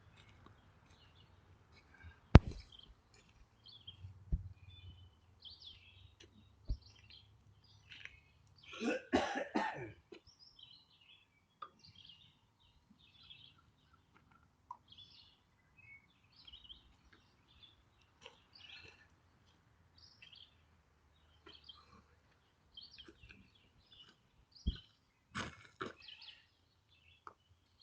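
A person coughing about nine seconds in, a short burst of several coughs. Small birds chirp throughout, and a few sharp knocks sound, the loudest about two seconds in.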